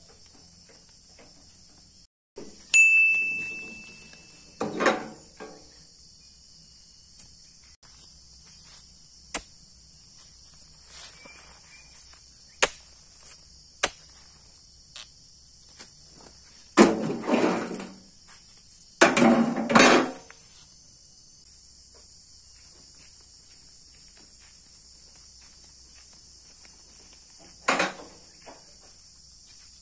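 Oil palm harvesting: several sharp knocks and a single metallic ding, and four rustling crashes of about a second each, as cut fronds or fruit bunches fall. Insects buzz steadily underneath.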